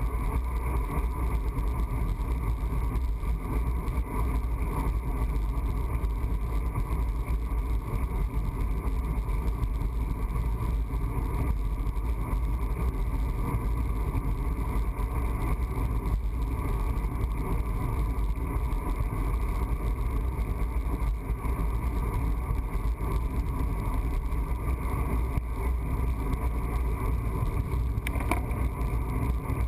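Steady wind and road noise buffeting a road bike's handlebar-mounted camera microphone while riding on pavement: a deep, unbroken rumble with a constant rush above it.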